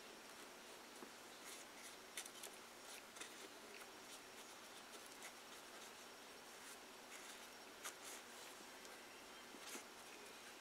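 Faint, irregular scratchy strokes of a paintbrush spreading glue over paper towel on a cardboard wall, over a low hiss.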